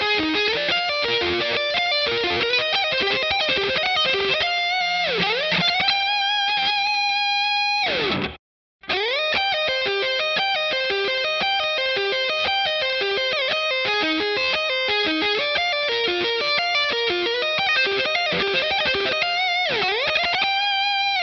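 Electric guitar playing a quick single-note lead phrase on the neck pickup, with one note dipping in pitch and returning and a held note that falls away at the end. The first take is on the guitar's stock Donner neck pickup; after a brief silence about eight seconds in, the same phrase repeats on a Seymour Duncan Distortion Mayhem neck pickup run passive.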